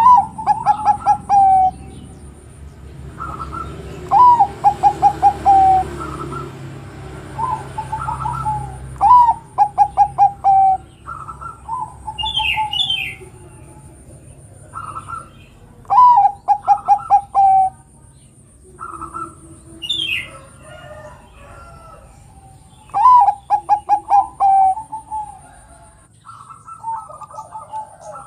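Zebra dove (perkutut) cooing over and over: each phrase is an opening note followed by a quick run of short staccato coos that falls slightly in pitch, with pauses between phrases. Brief higher chirps come in twice, a little before and a little after the middle.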